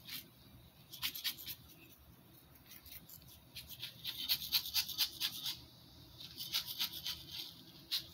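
Coarse bath salts shifting and rattling inside a glass mason jar as the jar is tilted and turned by hand: a gritty, scratchy rustle in several short runs, busiest from about four to five and a half seconds in.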